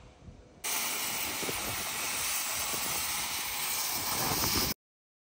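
Oxy-fuel gas cutting torch hissing steadily as it cuts through thick steel plate. The hiss starts abruptly about a second in and cuts off sharply near the end.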